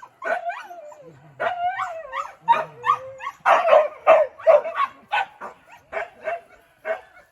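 Hunting dogs yelping and barking excitedly: drawn-out, sliding yelps and whines at first, then a run of short sharp barks about two a second.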